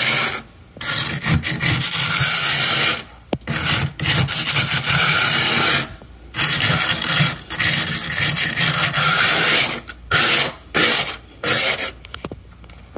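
A hand scraping thick built-up frost off the inside of a freezer, close up. Several long scraping strokes of one to two seconds each, with short pauses between them, stopping about twelve seconds in.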